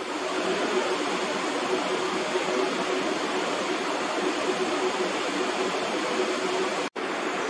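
Steady rushing noise with a faint steady hum beneath it. It breaks off for an instant near the end.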